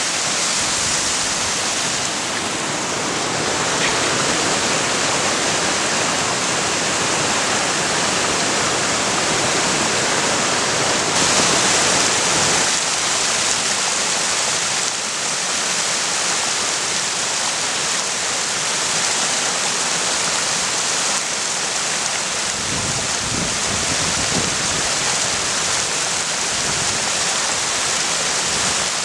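Small mountain creek cascade, snow- and ice-rimmed, with water rushing over the rocks in a steady, even roar.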